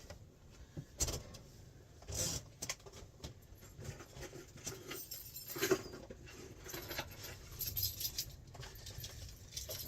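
Scattered light knocks, clicks and rustles of things being handled and moved about, someone getting ready to go out.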